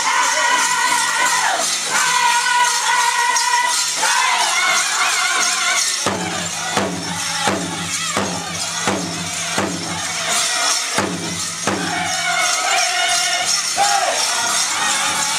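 Powwow drum group singing in high, held, falling voices over a steady drumbeat, with the jingle of dancers' bells on top. About six seconds in the singing drops lower and the drumbeat comes through plainly, about one and a half beats a second.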